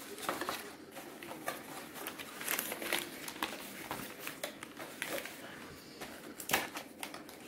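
Small cardboard test-kit box being handled and its flap folded shut: scattered light rustles, scrapes and taps of card.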